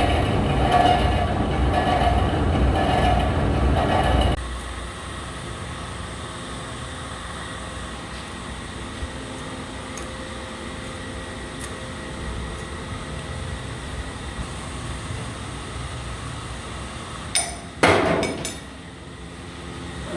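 Lathe machining a truck wheel hub: a loud, rough cutting noise stops abruptly about four seconds in. The machine then runs on more quietly with a steady hum, and two sharp metallic clanks come near the end.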